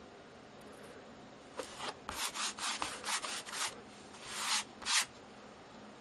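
A hand rubbing strips of tape down flat onto a painted canvas. About a second and a half in comes a quick run of short rubbing strokes, then one longer stroke and a last short one near the end.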